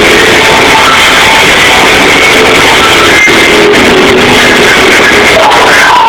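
Thrash metal band playing live, with heavy distorted guitars, heard through a badly overloaded audience recording that smears the sound into a harsh, clipped roar.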